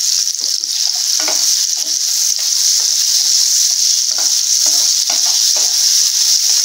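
Nendran banana slices sizzling in hot ghee in a non-stick frying pan, a steady high hiss. A spatula scrapes and knocks against the pan now and then as the slices are turned.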